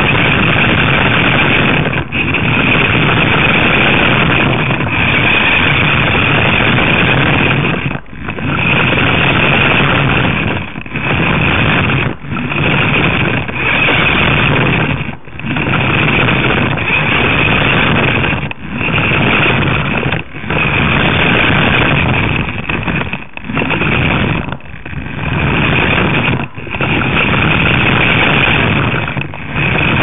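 Remote control car's motor and drive gears running, heard close up, with a steady high whine over a rumble. It cuts out briefly about a dozen times as the car stops and starts again.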